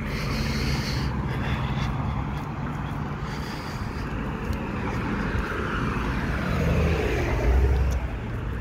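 Road traffic on the street beside the sidewalk: a steady noise of cars driving past, growing louder as a vehicle passes close about seven seconds in.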